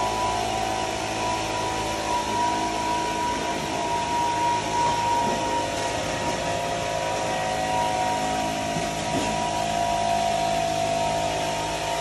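Electric tomato-pollination cart with its blower running steadily, blowing air over the plants to shake the flowers: a whine of several steady tones over a rushing hiss of air.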